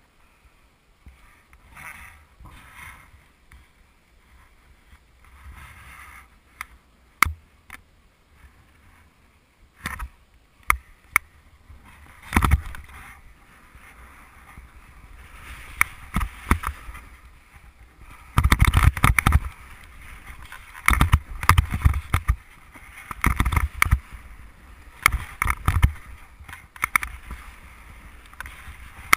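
A snowboard sliding and scraping over snow. A few sharp clicks come in the quieter first part, and then the board makes repeated loud swishes, one turn after another, from about halfway through.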